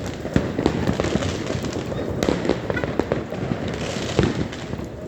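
Many fireworks going off at once: a dense run of sharp bangs and crackling pops over a continuous rumble, with a few louder bangs about two seconds in and again near the end.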